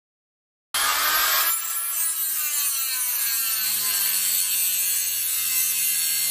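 Harbor Freight 3-inch cut-off tool grinding through a metal rod held in a vise: a loud, steady hissing grind that starts abruptly under a second in, with the motor's hum slowly dropping in pitch as it slows in the cut.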